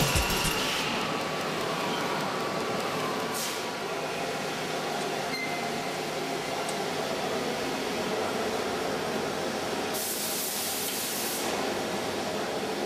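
Steady machine noise in a workshop, with a short hiss about three and a half seconds in and a longer, brighter hiss lasting about a second and a half near the end.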